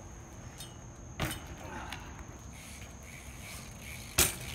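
BMX bike dropping off a concrete loading-dock ledge and landing on asphalt: a smaller knock about a second in, then the loudest sharp thud of the tyres and frame hitting the ground near the end, over a steady low background rumble.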